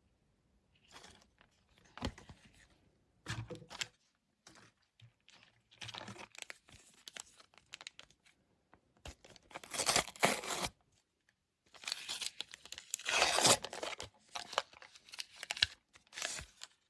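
Wrapper of a trading card pack, described as paper-like, being torn open and crinkled in irregular bursts, loudest about ten seconds in and again a little later.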